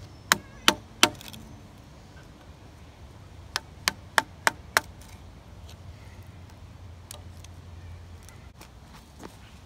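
Wood being chopped with a hand tool: three sharp strikes in quick succession, then after a pause a run of five more at the same quick pace.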